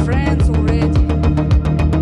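Background music with a steady, fast electronic beat, about four strikes a second, over sustained low notes.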